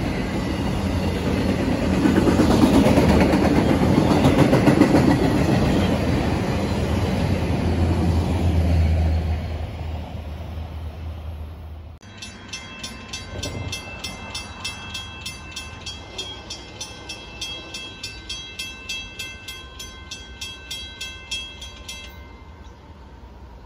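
Autorack freight cars rolling past on the rails, a steady heavy rumble and wheel noise that eases off. About halfway through it cuts to a quieter scene with a rapid, evenly repeating high-pitched ringing, several strikes a second, which stops abruptly near the end.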